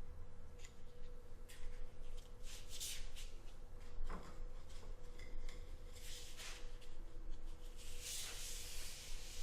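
Paper-faced drywall corner tape being handled, giving irregular rubbing and brushing strokes that grow louder near the end, over a faint steady hum.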